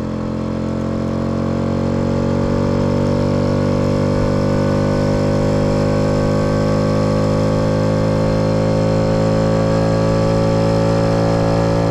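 Honda C100 Super Cub's 50cc pushrod single-cylinder four-stroke engine running at a steady cruise while the bike is ridden. It builds a little over the first couple of seconds, then holds an even drone.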